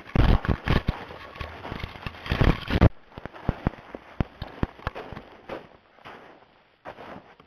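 Footsteps crunching through snow and brush, mixed with knocks and rubbing on a gun-mounted camera as it is carried. A dense run of loud crunches and knocks fills the first three seconds, then single steps and clicks come irregularly.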